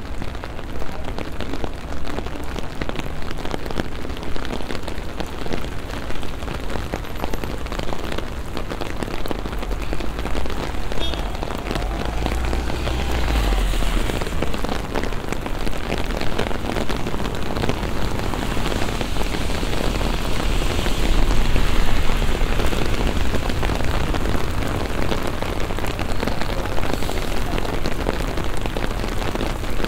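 Steady rain falling and pattering on wet pavement, with low rumbles near the middle and again about two-thirds of the way in, the later one the loudest moment.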